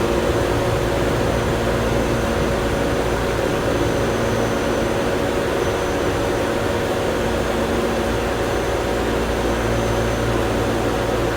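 Steady mechanical drone: a constant rush of noise with a low hum and several steady tones held throughout.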